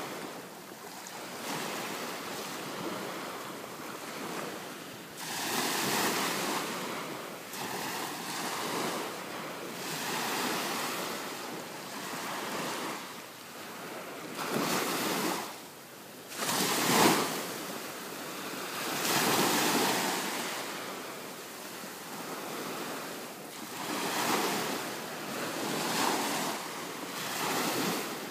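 Small ocean waves washing onto the beach, the surf noise rising and falling every couple of seconds, with some wind on the microphone. One louder, sharper surge comes about two-thirds of the way through.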